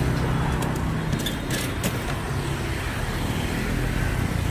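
Road traffic: engines running with a steady low hum and a wash of traffic noise, with a few short clicks or rattles about a second in.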